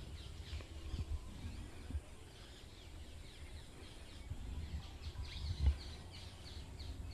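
Faint birds chirping, with many short falling chirps repeating, over a low rumble. A single soft knock a little past halfway.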